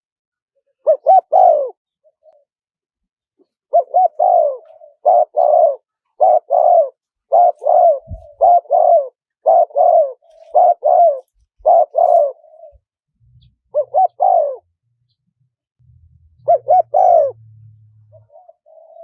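Spotted dove cooing: short phrases of two or three low coos, one at a time at first, then a run of about a phrase a second, then single phrases again near the end.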